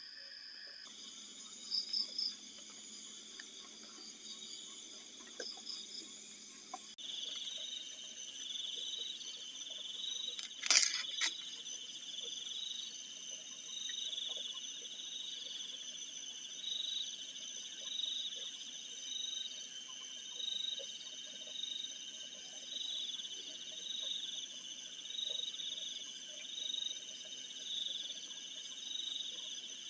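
Insects chirping steadily in high continuous trills, with a pulsing chirp repeating about every second. A single sharp click or knock comes about eleven seconds in.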